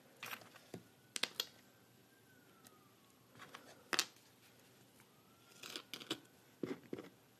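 Irregular light clicks and taps of small cut art-glass mosaic pieces being picked up and set down on the glass backing, with the glue bottle handled between them.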